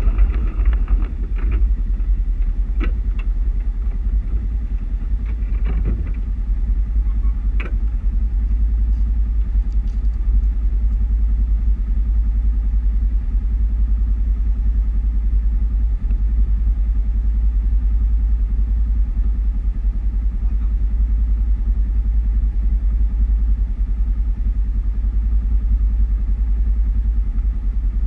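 Polaris RZR side-by-side's engine idling steadily while the machine stands still, with a few sharp clicks and knocks in the first several seconds.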